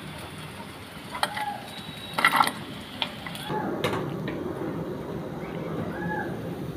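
Steel slotted spoon and steel bowl clinking and knocking against each other and the wok as fried soya chaap pieces are dished out, the loudest knocks a little past two seconds in. From about three and a half seconds in, a steady low background noise.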